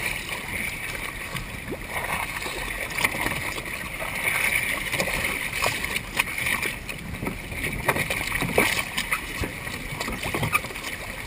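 Choppy water sloshing and lapping between a boat's hull and two plastic kayaks held alongside it, with scattered short knocks from the hulls and gear.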